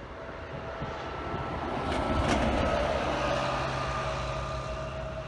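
Turbofan engines of a HOP! Embraer regional jet running on the runway: a steady jet whine over a broad rumble. It swells louder over the first two seconds, then eases off slightly.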